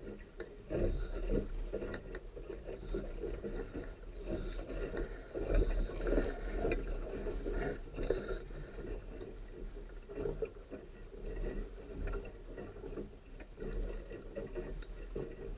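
Water splashing and gurgling along the hull of a Sunfish sailboat under way, coming in uneven surges, over a low steady rumble.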